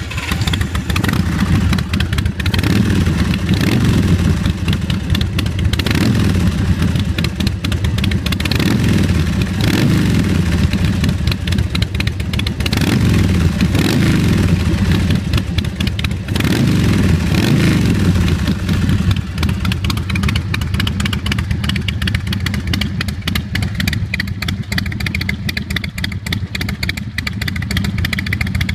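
Carbureted 111-cubic-inch S&S V-twin of a chopper motorcycle running through Vance & Hines exhaust pipes, just started. The throttle is blipped several times, each rev rising and falling, for the first twenty seconds or so, then the engine settles to a steadier idle.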